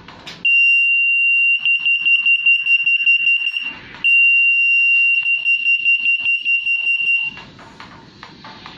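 RF electronic article surveillance (EAS) security gate alarm sounding with a high-pitched tone. It goes off about half a second in, steady at first and then rapidly pulsing, stops near four seconds, and sounds again straight away for about three more seconds. This is the alarm of a retail anti-theft gate detecting a security tag.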